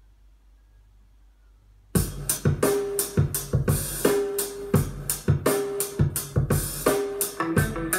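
Faint low hum, then about two seconds in a music track with drum kit, bass and keyboard starts abruptly with a steady beat, played back through Q Acoustics 2020i bookshelf speakers driven by a Yamaha A-S201 stereo amplifier.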